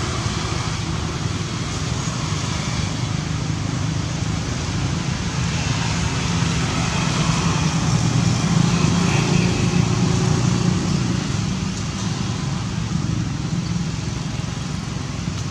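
Steady motor-vehicle and road-traffic noise, a continuous low rumble that swells slightly around the middle.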